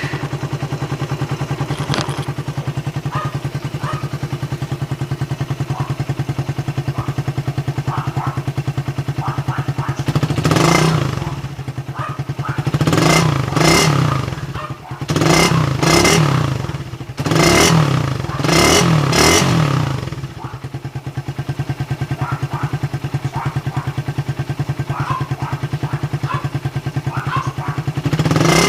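Suzuki Raider 150's single-cylinder engine breathing through a big-elbow exhaust header, idling with a steady beat. About ten seconds in it is blipped up and down several times in quick succession, then settles back to idle, with one more short rev near the end.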